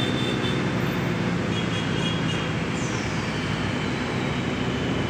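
A steady engine drone, with a high tone gliding slowly downward from about three seconds in.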